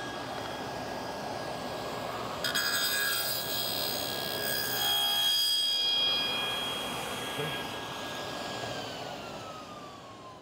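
Powermatic table saw running while a hardwood workpiece is lowered onto the blade and pushed through on a crosscut sled, cutting a stopped dado; the cut is loudest in the middle. Near the end the saw is switched off and winds down with a falling whine.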